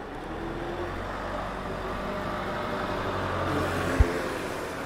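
A motor vehicle's engine passing close by: a low, steady hum that builds up over the first three or so seconds and then eases off. About four seconds in there is a single short, low thump.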